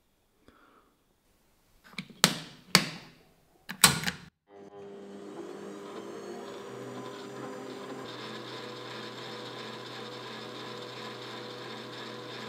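Three or four sharp clacks, then a metal lathe starts up about four seconds in and runs steadily; about eight seconds in the carbide insert tool begins cutting a cone point on a small steel set screw, adding a brighter cutting sound over the machine's hum.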